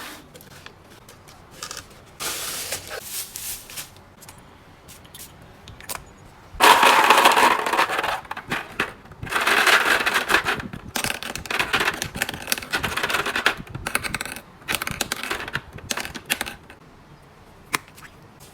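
Packaging being opened and handled: plastic and paper crinkling and rustling in irregular bursts, loudest in the middle, with small clicks and taps of items being picked up and set down.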